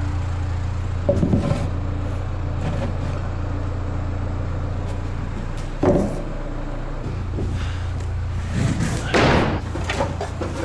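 Boom forklift's engine running steadily at idle, a low hum. A few knocks and thumps land over it, about a second in, midway, and a louder one near the end.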